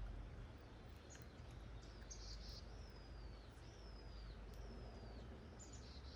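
A bird calling: a run of high whistles, each rising briefly and then sliding down, about one a second, mixed with a few short chirps. A low rumble runs underneath.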